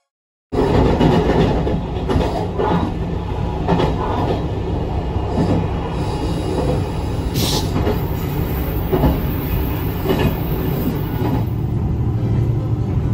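JR Shikoku 2700 series diesel railcar running along the line: a steady rumble with a click from the wheels every second or so, and a short hiss about seven seconds in. The sound cuts in half a second in.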